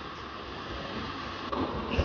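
Steady wind-like outdoor noise, then about a second and a half in a louder rumble with a faint high whine as a multi-axle girder transporter carrying a concrete box girder rolls along the bridge deck.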